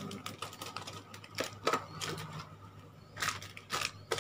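Plastic bags of model-kit sprues and parts crinkling and clicking as they are handled, in a series of short rustles.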